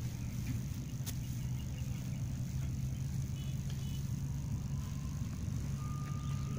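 A steady low motor hum, with a faint high steady buzz above it, one sharp click about a second in, and a thin steady tone that begins near the end.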